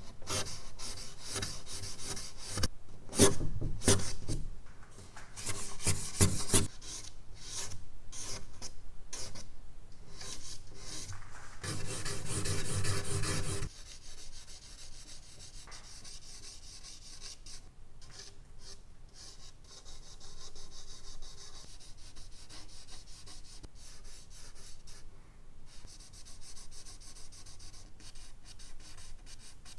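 Charcoal stick scraping across medium-surface drawing paper in quick, dense hatching strokes. The strokes are heavy and loud at first, then drop abruptly to lighter, softer strokes about halfway through.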